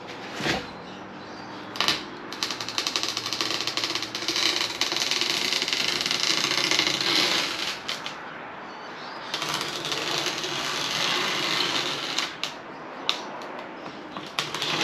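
A knife being drawn through a sheet of styrofoam in two long strokes, a dense rapid crackling scrape, after a couple of sharp clicks at the start.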